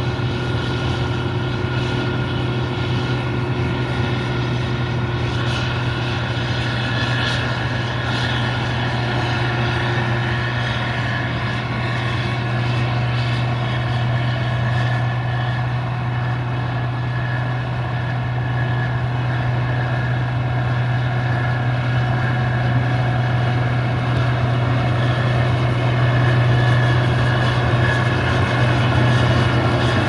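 Case IH 2166 Axial-Flow combine harvester running steadily, a continuous low engine drone with machinery noise over it that grows a little louder near the end.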